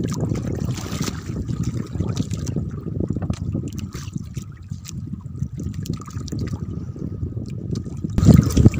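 Sea water sloshing and trickling in a steady rough wash, with a louder surge near the end.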